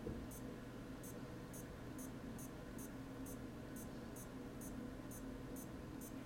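Short, very high ticks about two to three times a second from a Garmin fenix watch's button being pressed repeatedly to scroll, over a faint steady electrical hum.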